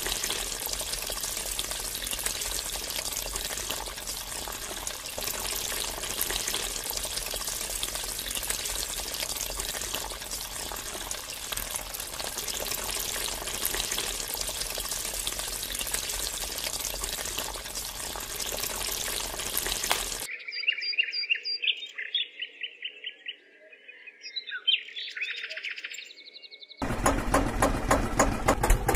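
Homemade mini DC-motor water pump spraying a thin jet of water onto a toy tractor: a steady hiss and splash that stops about 20 seconds in. Short high chirps of birds follow in the quiet. Near the end an evenly pulsing, engine-like chugging starts.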